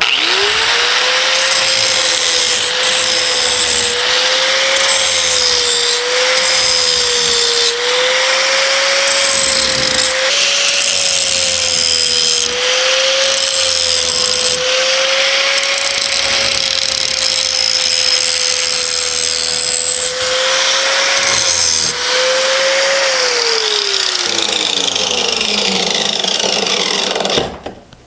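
Angle grinder with a 24-grit metal grinding wheel grinding the edges and corners of a thick steel plate: a steady motor whine over the hiss of the wheel on steel. About 23 seconds in it is switched off, and the whine falls in pitch as the wheel spins down.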